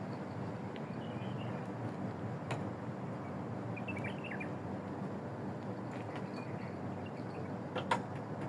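Steady outdoor background noise with a few faint, high chirps and two sharp clicks, the louder one near the end.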